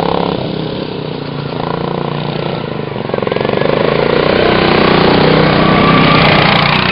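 Racing lawn mower engine running, growing louder from about three seconds in as it comes close, loudest near the end.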